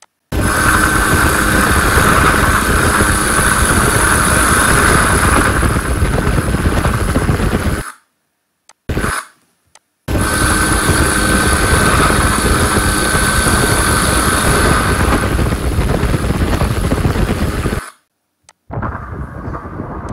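Helicopter cabin noise: a loud, steady rotor and engine rumble with a high whine over it. It stops abruptly about eight seconds in, comes back for a moment, then runs again from about ten seconds to eighteen. Near the end a quieter rushing noise follows.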